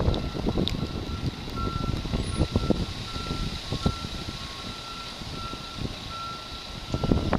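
Fire truck backup alarm beeping steadily, about two short beeps a second, over a low rumble with bursts of knocking and crackle at the start and near the end.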